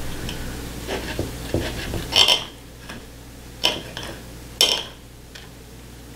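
Table knife and fork scraping and clinking against a dinner plate while cutting cooked steak, with three sharper clinks about two, three and a half, and four and a half seconds in.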